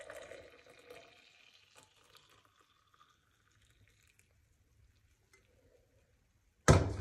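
Dark clothes being loaded into a washing machine: a soft rustle that fades out over the first few seconds, then quiet, then a loud thunk near the end.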